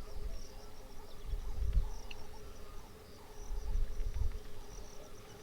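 Outdoor wildlife ambience: insects chirping in quick high repeated notes over a steady faint hum, with low rumbles swelling twice, about a second in and again past the middle.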